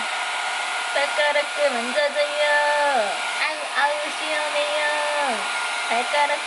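Hand-held hair dryer running steadily, blowing air over a cat's fur; its whine holds for about a second, dips in pitch and jumps back up, again and again.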